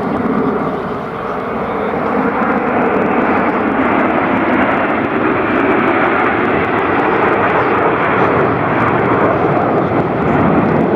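Jet noise from Alpha Jet trainers' Larzac turbofans as the formation flies by, swelling over the first couple of seconds and then holding at a loud, steady level.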